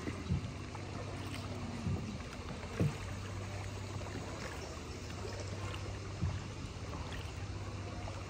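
A boat's engine runs with a steady low drone, with a few dull knocks scattered through it.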